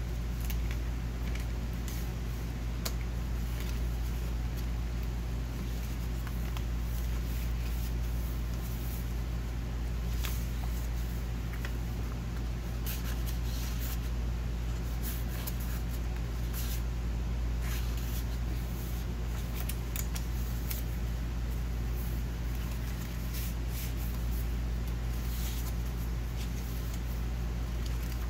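Paper pages of a handmade junk journal being handled and turned, with scattered soft rustles and clicks over a steady low hum.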